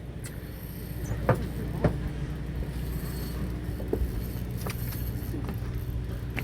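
Steady low hum of a fishing boat's motor running, with two short knocks about a second and a half in.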